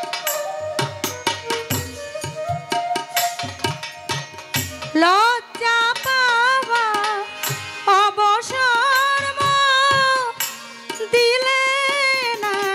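Bengali folk song with hand-drum strokes and a melodic instrument playing the intro. About five seconds in a woman's voice enters, singing long held, wavering notes over the drums.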